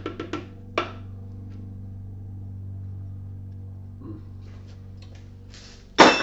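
A stirring rod knocking against the inside of a plastic pitcher of vinegar and salt in a few quick taps, then a steady low hum. Near the end, one loud sharp clank with a brief ring as something is set down on the steel bench.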